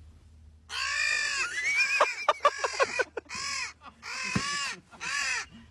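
A crow cawing: a long harsh call with a rising squeaky note, then three shorter caws.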